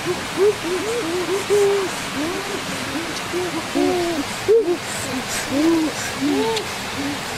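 A chorus of short hooting animal calls, each a quick rise and fall in pitch, overlapping at two or three a second and at differing pitches, over a steady rushing hiss.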